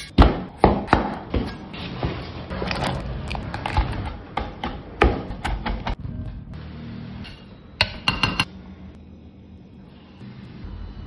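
Knife chopping garlic cloves on a wooden cutting board in a run of quick sharp knocks, then a metal potato masher pressing and scraping through boiled potatoes in a ceramic bowl, over light background music.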